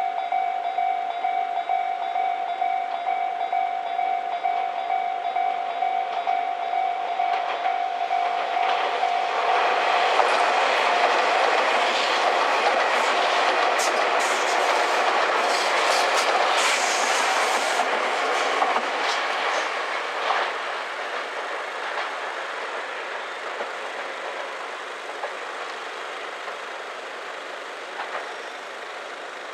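Japanese level-crossing alarm ringing, then a Tobu limited express train passes, loudest about twelve to eighteen seconds in, its wheels clicking over the rail joints. The train sound then slowly fades away.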